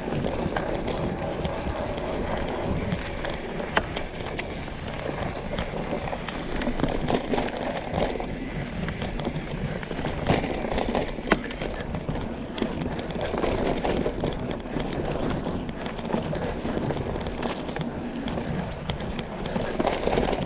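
Mountain bike clattering and rattling over a rocky off-road trail, tyres crunching on stones, with a few sharp knocks as it hits rocks.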